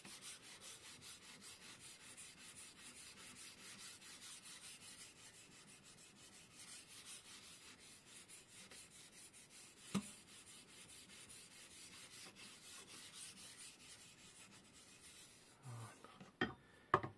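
A sharpening stone on a KosiM guided-rod knife sharpener scraping along a clamped knife edge in quick, even strokes, about three a second. A sharp knock comes about ten seconds in, and a few clicks near the end.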